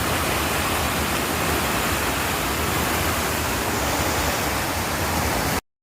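Steady, loud rushing outdoor noise with an uneven low rumble, cutting off abruptly near the end.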